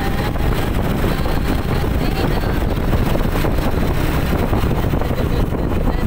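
Steady rumbling wind buffeting on the microphone from a moving vehicle, with the vehicle's running and road noise underneath.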